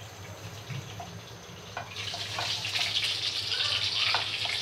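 Marinated chicken pieces frying in oil in a pan on a gas stove: a hissing sizzle that starts about halfway through and grows louder. Before it, only a few light clicks.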